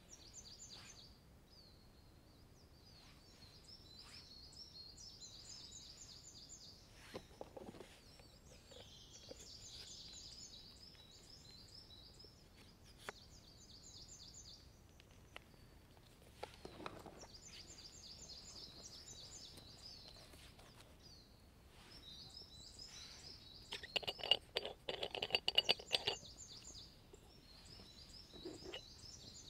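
A songbird singing repeated short, trilling phrases over a quiet woodland background. There are a few light clicks of gear being handled, and near the end a short, louder burst of rapid clicking and rattling.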